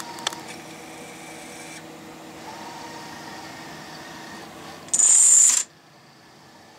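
CRS F3 industrial robotic arm's servo motors running with a steady whine of several held tones as the arm moves. About five seconds in, a sudden loud, high whirring rush lasts under a second and then cuts off, leaving a fainter hum.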